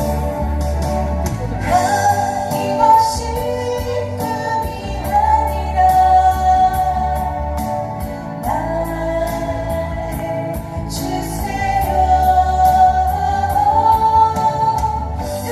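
A woman singing a slow song with long held notes, over guitar and a backing with bass and a steady beat.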